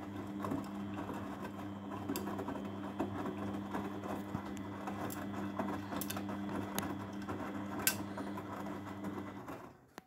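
Grundig front-loading washing machine on a coloured wash: the drum motor runs with a steady hum while wet laundry tumbles and water sloshes behind the door. The hum fades out and stops shortly before the end, as the drum pauses between turns.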